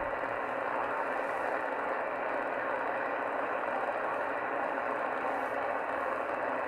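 Steady hiss of static from a shortwave receiver's speaker tuned to CB channel 38 (27.385 MHz) lower sideband, with no voices coming through: the skip signal has faded out for the moment.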